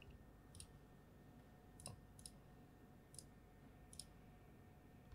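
Faint computer mouse clicks, about five spread irregularly over a few seconds, against near-silent room tone.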